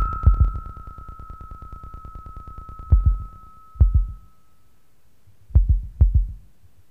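Electronic noise music played from a cassette. A steady high tone and a fast, even pulsing fade away over the first few seconds, while deep low thuds, each with a sharp click on top, come singly and then as a close pair near the end.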